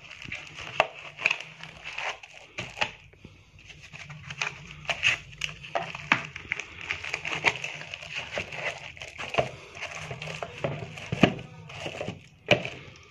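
Cellophane-wrapped receivers and their foam packaging being handled: crinkling plastic with scattered sharp clicks and taps, the sharpest near the end, over a steady low hum.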